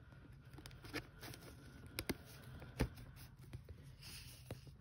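Faint handling of a trading card and a clear plastic card sleeve as the card is slid in, with a few small sharp clicks about one, two and nearly three seconds in.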